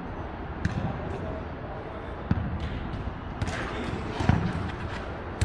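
A jokgu ball thudding on feet and court in play: four dull thumps over the few seconds, the loudest about two-thirds of the way through.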